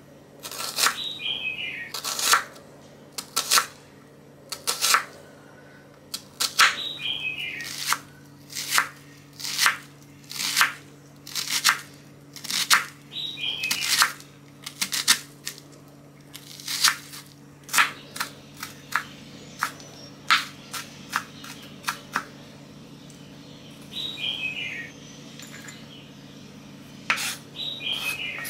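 Chef's knife chopping onion on a wooden cutting board: sharp knocks of the blade striking the board, in uneven runs with short pauses. A short falling chirp of several quick notes recurs about five times, over a faint steady low hum.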